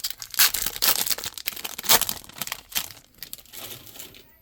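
Foil Pokémon card booster pack wrapper being torn open and crinkled in the hands: a dense run of crackling and tearing that thins out in the last second or so.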